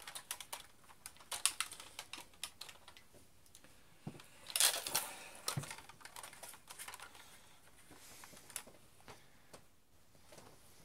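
Scattered clicks and rattles of a plastic spring-powered airsoft rifle being handled, with a louder, longer scrape or clatter about four and a half seconds in.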